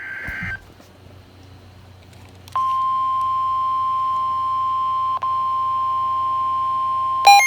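Emergency Alert System broadcast tones. A short buzzy data burst ends about half a second in. After a low hum, a steady single alert tone of about 1050 Hz, the weather-radio warning alarm, starts about two and a half seconds in and holds for about five seconds, with one brief dropout. Just before the end, a warbling, rapidly switching multi-tone begins.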